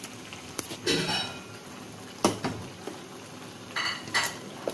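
Metal ladle knocking and clinking against a metal wok: a few separate knocks, some with a short metallic ring, the sharpest about two seconds in.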